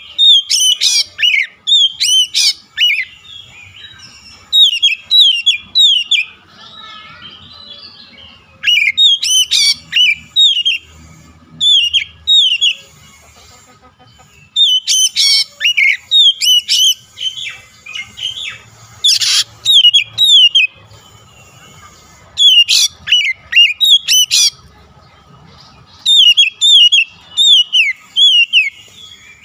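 Oriental magpie-robin (kacer) singing loudly in phrases of rapid down-slurred whistles. Each run lasts one to four seconds, with short pauses between, and a single harsh burst comes about two-thirds of the way through.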